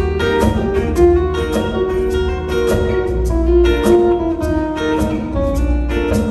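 Two acoustic guitars playing together in a live instrumental passage, a quick run of picked notes over held tones.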